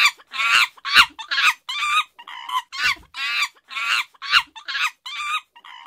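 A chicken squawking over and over in short, high calls, about two a second.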